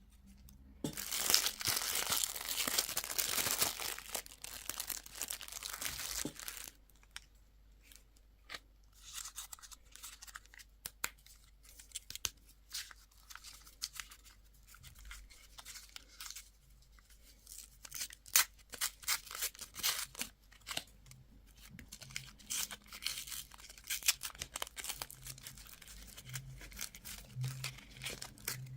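Candy and toy packaging being torn open and crinkled by hand: a stretch of loud tearing and rustling for about five seconds near the start, then scattered crinkles and crackles of handled wrappers.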